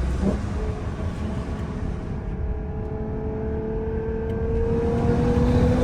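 Ferrari Purosangue's V12 engine pulling steadily under acceleration, its note rising slowly in pitch and growing louder through the second half, over low road rumble.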